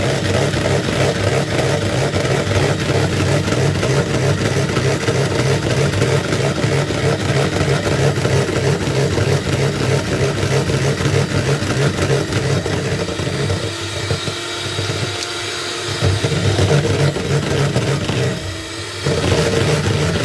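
Small electric motor of a kitchen appliance running steadily while emulsifying mayonnaise. The sound eases off for a couple of seconds a little past the middle and dips again briefly near the end.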